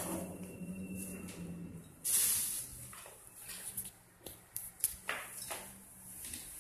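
Handling noises from a ceramic French press carafe moved about on a wooden table: a knock at the start, a short rustle about two seconds in, then a few light knocks and clicks.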